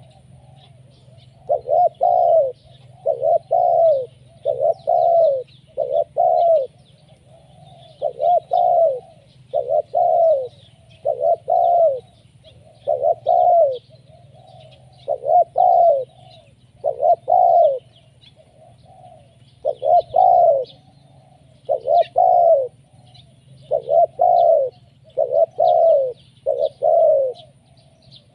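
Spotted dove cooing over and over: a steady run of low coos, each about half a second long, with short pauses between groups. Small birds chirp faintly behind it.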